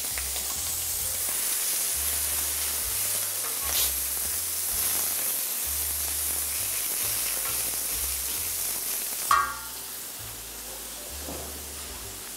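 Beef burger patty and bacon sizzling steadily on a hot flat-top griddle. About nine seconds in comes one sharp, ringing metal clank of the steel spatula on the griddle, after which the sizzle is quieter.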